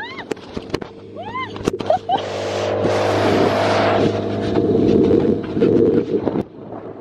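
Motorboat running at speed across open water: a steady engine hum under the rush of water and spray past the hull, with a jet ski running close by. A few short rising-and-falling cries come in the first two seconds; the rush swells loudest in the middle and drops off suddenly near the end.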